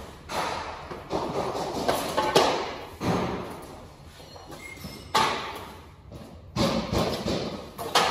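Irregular thumps and knocks of laminate panels being handled and set down, about nine in all, each ringing on briefly in a large, echoing room.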